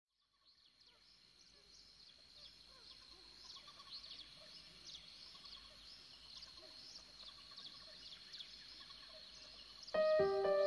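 Small birds calling with many short, high chirps, faint at first and slowly growing louder, over a faint steady high whine. About ten seconds in, music with clear bell-like notes starts suddenly and is the loudest sound.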